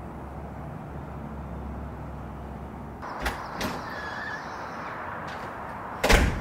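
A steady low outdoor rumble, then a couple of light clicks. Near the end comes a single loud thud as a house's front door is pulled shut.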